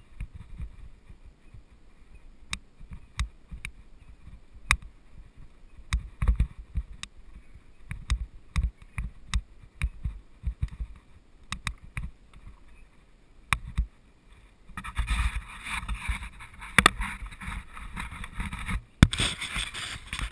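Mountain bike being ridden over a dirt trail: the frame and parts rattle and knock sharply over bumps, with a low rumble underneath. About three-quarters of the way in, the tyres start crackling steadily through dry fallen leaves.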